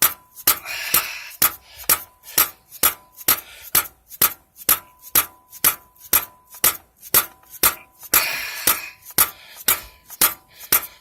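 Rubber mallet rapping on a Harley-Davidson V-Rod's water pump impeller, about two sharp blows a second, with brief scraping about a second in and again about eight seconds in. The impeller is stuck and will not come off, which the owner puts down to a seized bearing behind it.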